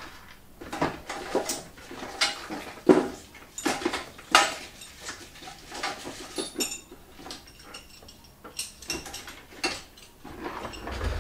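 Steel hand tools, reamers among them, clinking and knocking against each other as a tool drawer is rummaged through: an irregular run of clinks and knocks, some louder than others.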